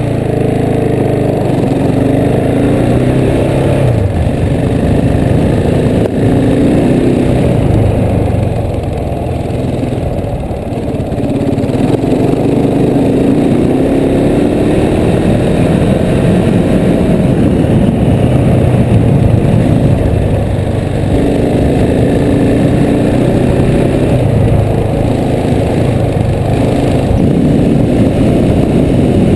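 Adventure motorcycle engine running under way, its pitch rising and falling repeatedly as the rider accelerates and eases off, dropping back for a few seconds about a third of the way in.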